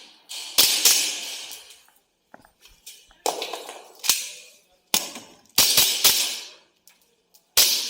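Shots from a WE G17 gas blowback airsoft pistol: about eight sharp cracks, each trailing off in an echo. A single shot comes early, then a quick string of shots from about three to six seconds in, and a last shot near the end.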